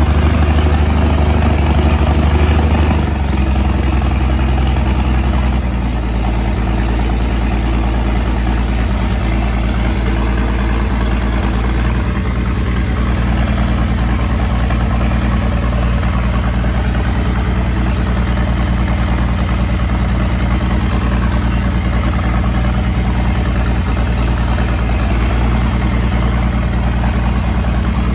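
Tractor engine idling, settling to a slightly lower, steady idle a few seconds in.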